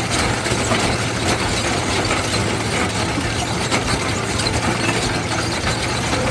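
Trencher working: its engine runs steadily under a dense, continuous rattle of clicks from the digging machinery.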